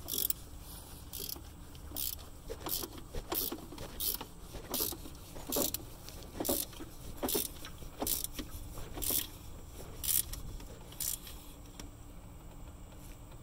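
A hand wrench is working the alternator mounting bolt, making a short metallic click or clink with each stroke, about one every half-second to second, until the strokes stop near the end.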